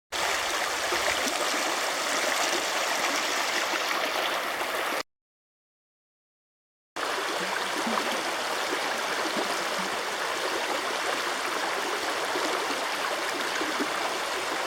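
Steady rushing of a fast river's water, cut off abruptly after about five seconds, then dead silence for about two seconds before the water starts again.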